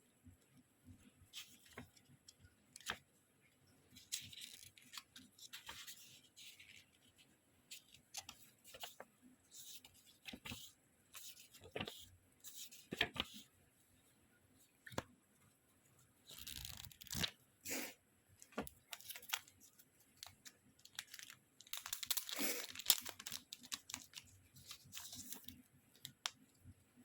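Packaging being torn open and handled: scratchy tearing and crinkling with many small clicks and taps, busiest about two-thirds of the way in.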